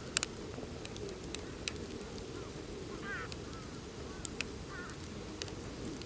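Wood campfire crackling, with scattered sharp pops over a steady low rumble. Faint short chirps come a few times in the second half.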